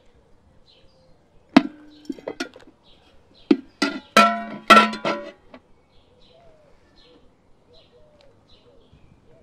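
Metal cookware clanking: a sharp ringing clang about a second and a half in, then a quick run of ringing knocks and clatters, as a metal pan used as a lid is lifted off a steaming cooking pot.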